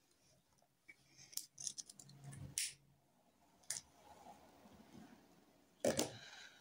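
Scattered short clicks and light rustling from someone shifting about on a bed, with a louder thump about six seconds in.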